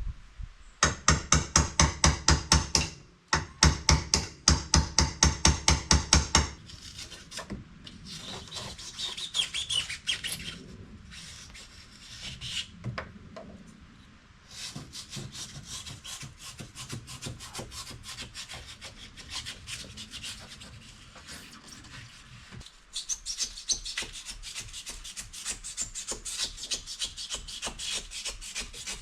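Loud, fast rasping strokes on wood, about five a second, for the first few seconds, then quieter, irregular scraping and rubbing as an old nailed and foamed-in wooden door frame is worked loose.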